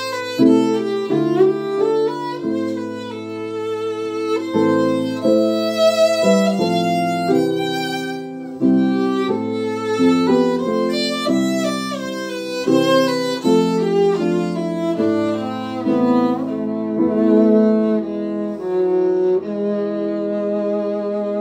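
Violin playing a slow melody with vibrato, accompanied by an upright piano.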